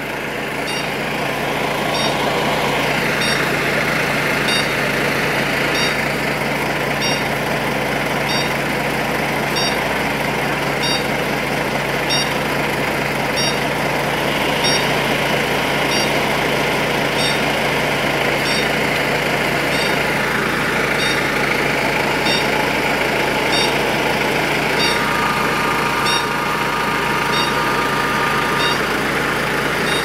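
Parked fire engines idling steadily, a constant low engine hum with a faint regular high ticking under two a second. A steady whine joins in for about four seconds near the end.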